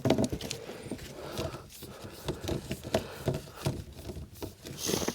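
Handling noise from hands at work: irregular light taps, scrapes and rustling.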